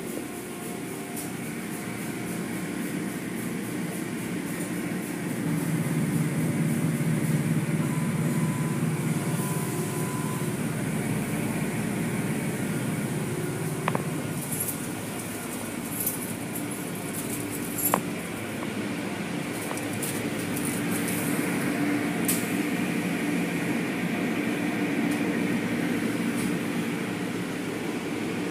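Automatic tunnel car wash running: a steady mechanical hum of motors and spinning cloth brushes with hissing water spray, heard through a viewing window. A few sharp clicks sound over it, the loudest about 18 seconds in.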